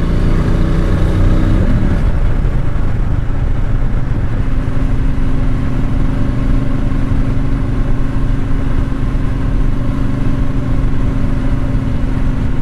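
Triumph Speedmaster's 1200 cc parallel-twin engine pulling the bike along at road speed, with wind and road noise. The engine note changes pitch in the first couple of seconds, then holds steady.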